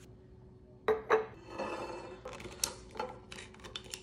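A small glass jar being wiped dry with a microfiber towel: two sharp knocks about a second in, then cloth rubbing on the glass, and scattered light clicks and taps near the end.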